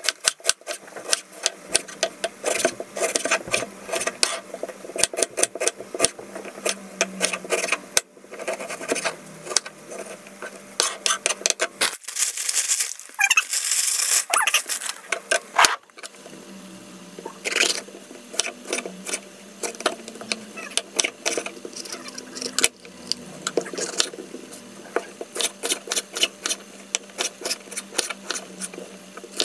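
Kitchen knife chopping a red onion and then a yellow bell pepper on a wooden cutting board: runs of quick knocks of the blade on the board with short pauses between. Partway through, a plastic bag crinkles as more peppers are handled.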